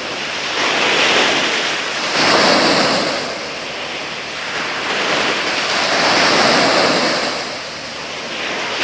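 Sea waves breaking and washing on the shore in slow swells, rising and falling every few seconds.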